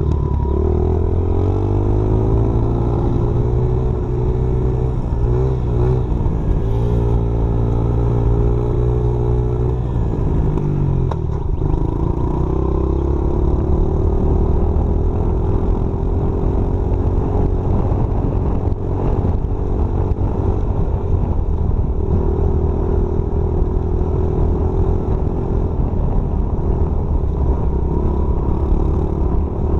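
Small dirt bike engine running as it is ridden, holding a steady pitch with a few brief dips, falling about ten seconds in and then climbing back and holding as the bike speeds up again.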